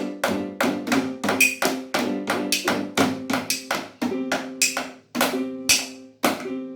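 Rhythmic percussion: sharp taps at about three to four a second, each with a short pitched ring, in a steady beat.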